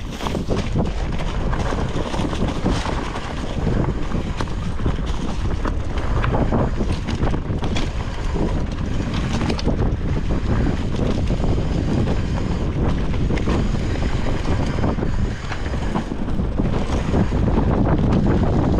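Titanium hardtail mountain bike riding fast down a dirt forest trail: tyres rolling over dirt and roots with constant rattling and knocking from the bike, under heavy wind noise on the microphone.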